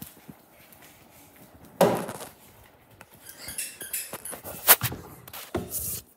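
Handling noise as a phone camera is set down on a wooden table and a doll is moved about: a loud knock about two seconds in, then scattered rustling with a sharp click near the end and a few light thuds.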